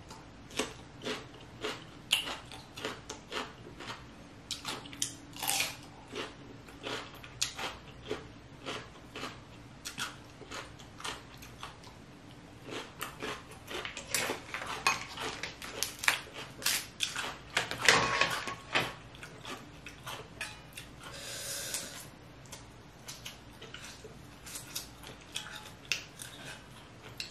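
Close-miked eating sounds: chewing and crunching with many short sharp clicks and cracks as snow crab legs and lobster shell are broken and picked apart. They come thickest about two-thirds of the way through, where the loudest crack falls.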